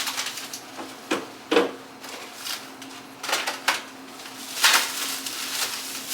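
Groceries being handled and set down: a series of short knocks and rustling bursts, the loudest about two-thirds of the way through, over a faint steady hum.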